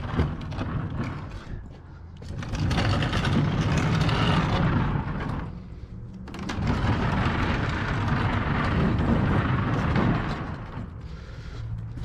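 A large double-door refrigerator being dragged over dirt and ground, a heavy rumbling scrape that comes in long pulls of a few seconds with brief pauses between them.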